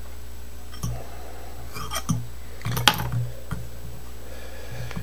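Light handling noises of hackle being wrapped onto a hook in a fly-tying vise: a few soft clicks and rustles, with one sharper click just before three seconds in, over a steady low hum.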